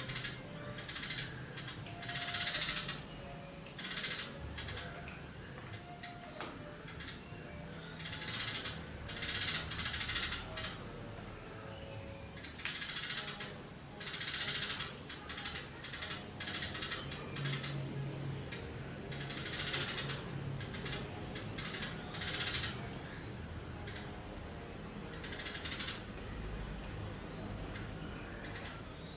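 Eurasian tree sparrow giving long bursts of rapid, high, chattering chirps. Each burst lasts up to about a second and is repeated every second or two with short pauses between.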